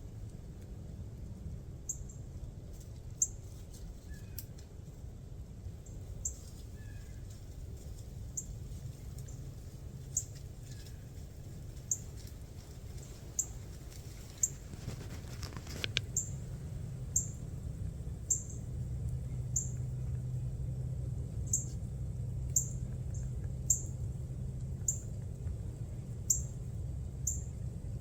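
A small bird giving repeated high, thin chip notes, about one every second or so at uneven spacing, over a low steady rumble.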